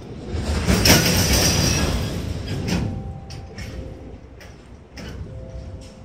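JR Freight container train's flatcars rolling past with a steady rumble and a rushing surge in the first three seconds, then the wheels clicking sharply over rail joints about half a dozen times.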